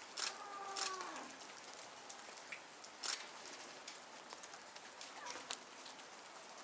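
Female snow leopard calling to her cub: one drawn-out call lasting about a second, sliding down in pitch at its end. Scattered faint ticks like dripping run underneath.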